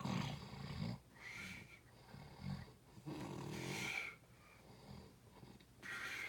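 Snoring: two rattling snores about three seconds apart, with softer wheezy breaths in between.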